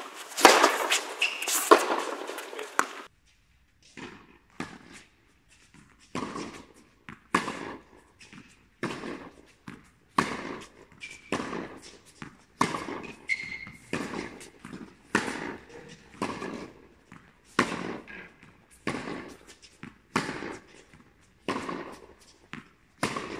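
Tennis balls being struck by a racket and bouncing on an indoor hard court, a sharp hit about every second and a quarter with fainter bounces between, ringing briefly in the hall. The first three seconds are louder and busier, with hall noise under the hits.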